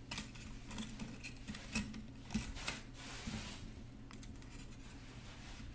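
Thin half-round wire being fed through and wrapped around a small wire ring by hand: scattered light clicks and scrapes of metal on metal, with a longer rubbing hiss about three seconds in as the wire is drawn taut. A steady low hum runs underneath.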